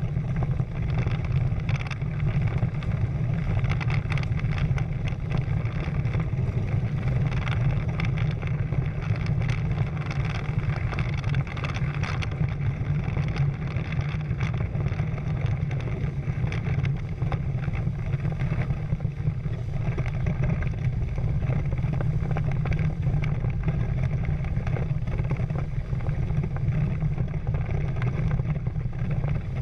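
Wind buffeting the camera microphone in a steady low rumble, over water rushing and splashing along the hulls of a Prindle 16 catamaran sailing fast, with constant crackles of spray.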